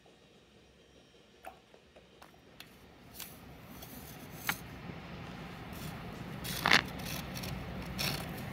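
Near silence at first, then a few faint clicks, then a child's plastic toy shovel scraping in thin snow on pavement over an outdoor hiss that fades in. The loudest scrape comes about two-thirds of the way through, with another near the end.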